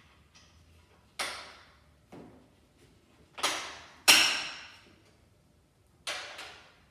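A series of about six sharp knocks and clanks, each ringing briefly, with the loudest a little past the middle. They are typical of tools and parts being handled during the repair.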